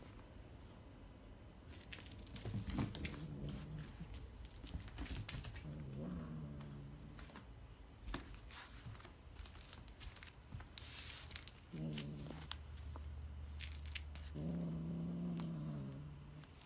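Kitten making low, drawn-out growling calls while it plays with its mouse, four of them, the last and longest near the end. Scattered clicks and rustles of the play come in between.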